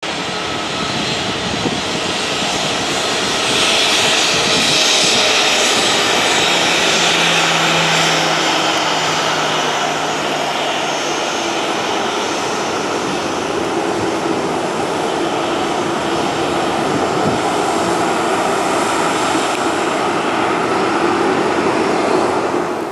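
Ryanair Boeing 737's jet engines running at high power: a loud, steady rushing noise with a thin steady whine, loudest about four to ten seconds in.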